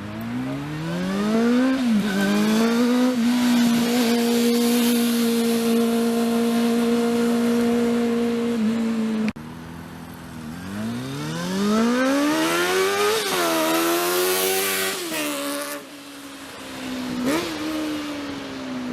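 Honda CB400's inline-four engine running with no exhaust silencer fitted, open and loud, accelerating hard. The revs climb, jump at a gear change and hold steady for several seconds, then cut off abruptly. A second run revs up through another gear change and the revs fall away near the end.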